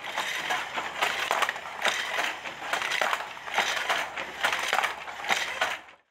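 Wooden handloom clattering in uneven, crackly strokes about once or twice a second, stopping suddenly near the end.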